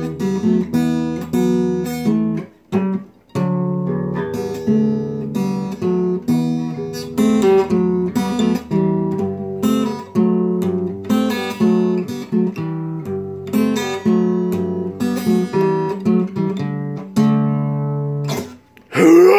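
Acoustic guitar playing a run of chords with a bass note under each, one stroke every half second to a second; a loud voice breaks in at the very end.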